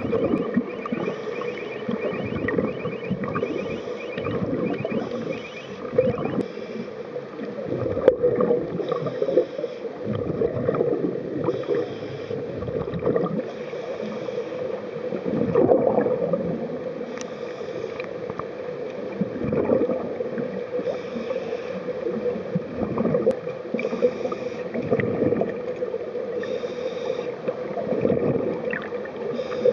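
Underwater sound through a waterproof compact camera's microphone: scuba divers' exhaled bubbles gurgling in surges every few seconds over a steady low hum.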